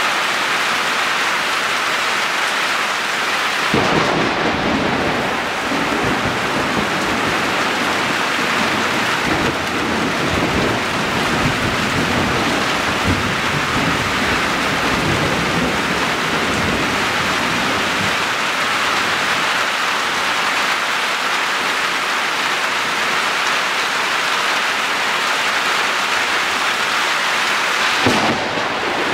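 Heavy downpour hissing steadily. A close thunderclap breaks about four seconds in and rolls on for more than ten seconds before fading. A second crack of thunder comes near the end.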